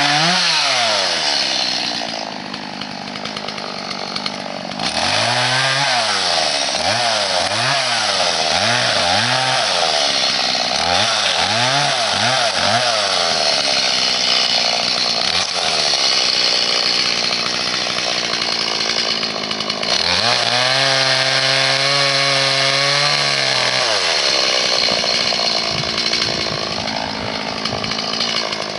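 Stihl 180 two-stroke chainsaw running loud, its pitch rising and falling as the throttle is blipped several times in quick succession, then held high for a few seconds in a longer rev about two-thirds of the way through.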